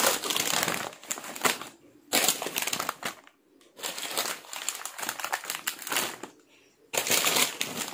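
Plastic snack-chip packets crinkling as they are handled and stacked, in four rustling bursts with short pauses between.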